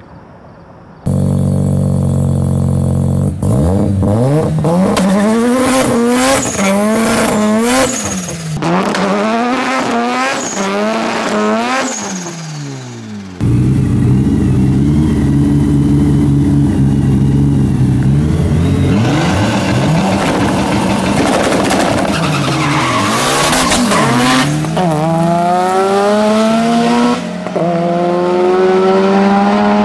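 A turbocharged Mitsubishi Galant VR-4 four-cylinder, running on E85 with a Holset HX35 turbo, is revved hard again and again, rising and falling in pitch. After a cut, it and a big single-turbo rotary Mazda RX-7 with anti-lag sit loud at the line. Then they launch and accelerate hard, their engine pitch climbing in steps with each gear shift.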